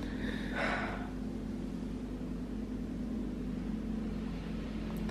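Steady low mechanical hum in a small tiled room, with a short rustle of a cotton towel being lifted from a rack about half a second in and a small sharp click near the end.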